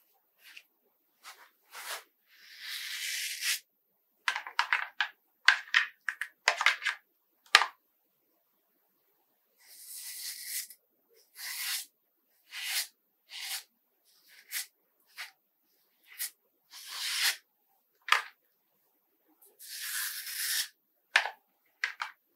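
Multi-blade cartridge razor scraping through shaving foam and stubble on a scalp, in about twenty separate strokes, most short and a few drawn out for about a second, with silence between them.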